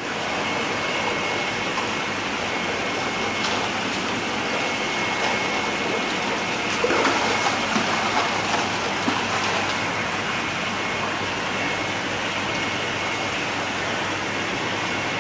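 Water splashing and churning in a tank as a crowd of cá lăng catfish (Hemibagrus) thrash at the surface, a steady rush with louder, irregular splashes about seven to nine seconds in.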